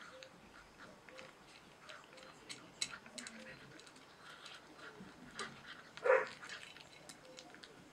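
German Shorthaired Pointer puppy eating dry kibble from a stainless steel bowl: scattered small crunches and clicks of kibble against the metal. A short puppy yelp about six seconds in.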